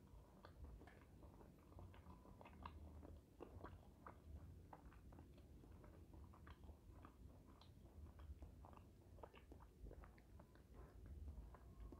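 Faint chewing of a bite of sauced fried chicken: quiet, irregular wet mouth clicks over a low room hum.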